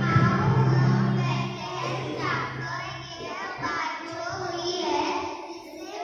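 Ambient background music with held low tones fades out in the first two seconds, then a child's voice comes through a microphone and PA.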